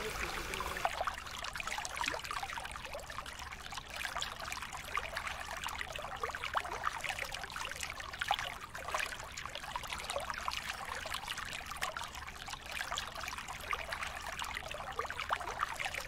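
Water trickling and splashing steadily in a seal's pool.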